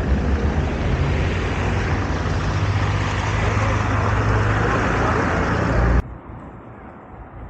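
A vehicle engine running, with a steady low hum under a wide rushing noise, which cuts off suddenly about six seconds in to a much quieter background.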